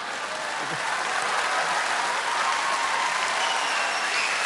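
Theatre audience applauding and laughing in response to a comedian's punchline.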